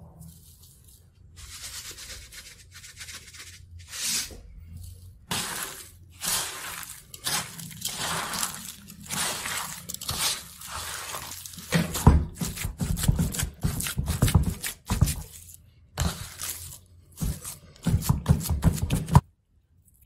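A hand mixing and kneading a raw filling of ground meat, rice, tomato paste and olive oil in a wooden bowl. It makes an irregular run of rustling and pressing noises that get heavier and deeper in the second half, then stop abruptly near the end.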